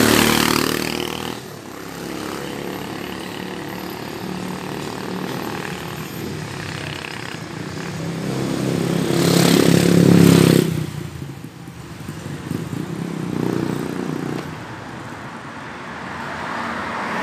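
A small motorcycle rides past close by, its engine loudest at the very start and fading within a couple of seconds, over steady street traffic. A second vehicle passes about ten seconds in, louder still, and a fainter one follows a few seconds later.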